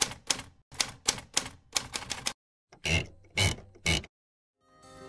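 Manual typewriter keys clacking in quick runs of strokes, then three heavier, separate strikes with a low thump. Music begins to fade in near the end.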